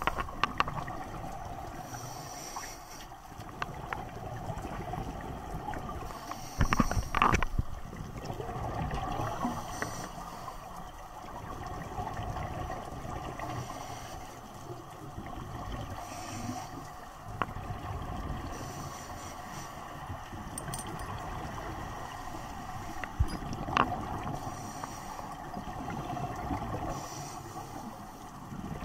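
Underwater sound of scuba diving: regulator breathing, with a rush of exhaled bubbles every few seconds over a steady underwater hum. A few short knocks, the loudest about seven seconds in.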